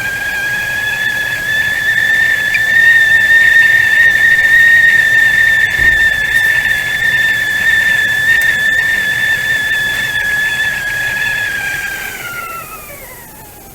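Stovetop tea kettle whistling at the boil: one loud, steady whistle that falls in pitch and fades away near the end.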